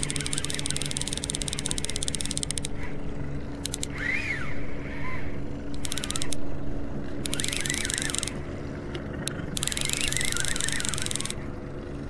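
Boat motor running steadily at trolling speed, a constant low hum, with spells of hiss and short high chirps coming and going over it.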